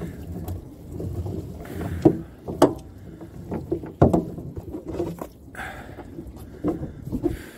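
Wet trammel net being hauled by hand into a small fibreglass boat, with rustling and irregular knocks of net and floats against the hull; sharp knocks about two and four seconds in.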